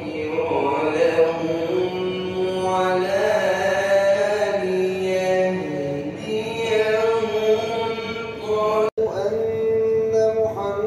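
A man chanting in Arabic in a melodic religious style, holding long ornamented notes. The sound cuts out for an instant about nine seconds in, then the chanting goes on.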